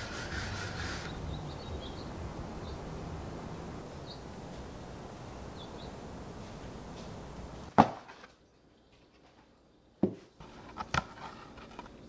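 A dryer sheet rubbing against a window insect screen for about the first second, then outdoor ambience: a steady low hum with a few short, high bird chirps. About eight seconds in there is one sharp knock, then near silence broken by a few light clicks.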